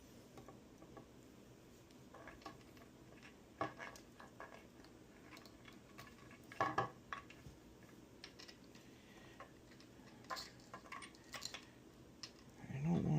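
Scattered light clicks and small metal clinks as tools and parts are handled during soldering work, with a brief low voice sound near the end.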